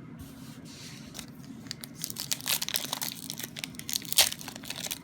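Foil wrapper of a Pokémon trading card booster pack crinkling and tearing as it is opened by hand: faint at first, then a dense crackle from about two seconds in.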